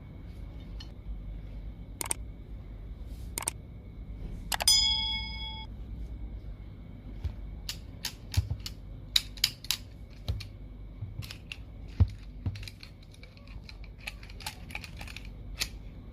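Metal pliers being handled and worked, giving sharp clicks and clinks. One clink about four and a half seconds in rings on for about a second, and the clicks come thicker in the second half.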